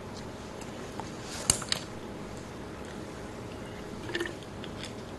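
Faint steady background hiss with two short sharp clicks close together about a second and a half in, and a faint soft blip near the end.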